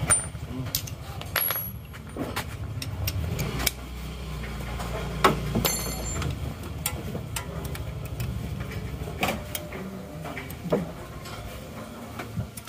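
Isuzu Panther 2.3 indirect-injection diesel engine idling with a steady low rumble that cuts out near the end, while hand tools clink and knock against metal in the engine bay.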